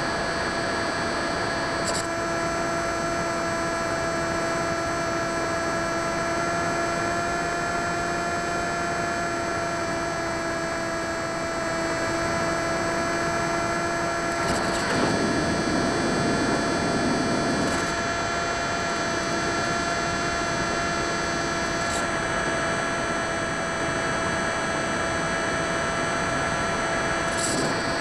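Electric motor and propeller of a radio-controlled Drifter ultralight model plane running steadily in flight, heard through the onboard camera as a constant whine over wind hiss. About halfway through, the lowest note of the whine drops away for a few seconds under a louder rush of air, then returns.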